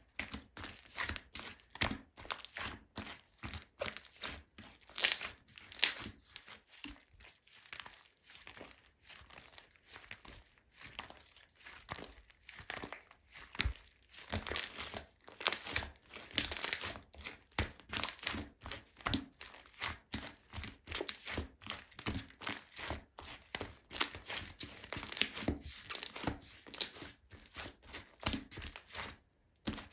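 Slime being squished, pressed and stretched by hand, giving a steady run of small sticky clicks and crackles, with a few louder pops now and then.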